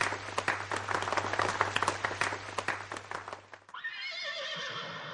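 Audience applauding, a dense patter of many hands, which stops about three-quarters of the way through. A horse whinny follows, a long wavering call.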